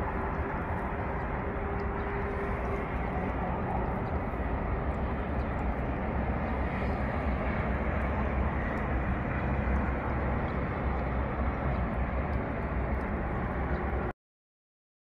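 Steady outdoor rumble and hiss with no distinct events, cutting off abruptly to silence about fourteen seconds in.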